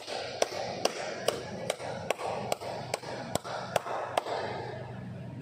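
Hand claps in a steady, even rhythm of just over two a second, about eleven in all, over a murmur of voices: applause for the match-winning point.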